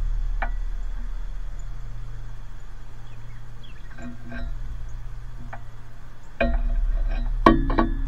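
Scattered light clicks and taps over a low rumble, with two sudden knocks that jolt the rumble louder near the end, the sharpest about half a second before the end: a tufted titmouse landing on the feeder pole's metal perch arm close to the microphone.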